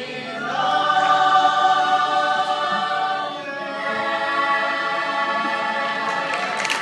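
A mixed-voice a cappella group singing long held chords in close harmony. The chord swells about half a second in, then moves to another sustained chord around the middle.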